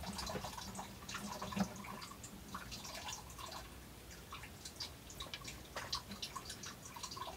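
Faint, irregular water drips in the background, the dripping the owner puts down to his sump pump running hard. Small clicks of tools and turntable parts being handled are mixed in.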